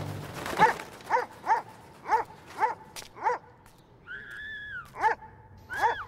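Repeated short animal calls, each falling in pitch, about two a second, followed about four seconds in by a longer drawn-out call and then two more short ones.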